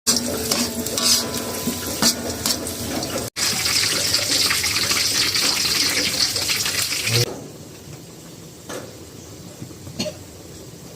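Water running from a tap, as when washing food at a sink, stopping abruptly about seven seconds in. A few light clicks follow.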